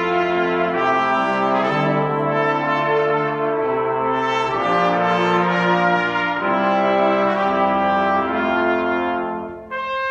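Live brass ensemble of trumpets and lower brass playing a piece in held, several-note chords that change about once a second. The playing drops away just before the end.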